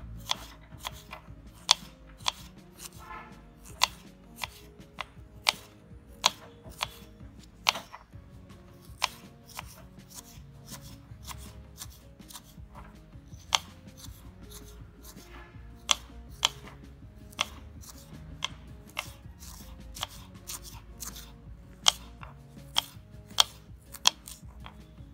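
A small kitchen knife slicing crisp raw winged bean pods on a wooden cutting board, each cut a sharp tap of the blade onto the board, about one to two a second at an uneven pace.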